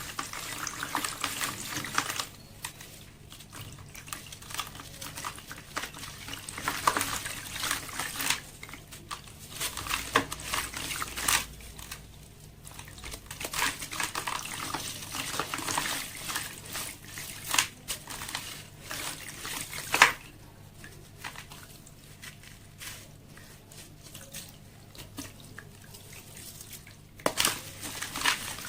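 Sand-cement slabs crumbling in water: a steady crackling and fizzing with many sharp snaps and crunches, the loudest about twenty seconds in.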